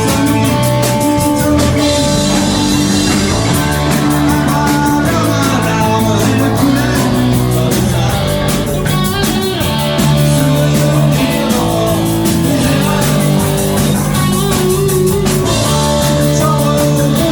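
Live rock band playing: electric guitars and a drum kit with a steady beat, with some singing.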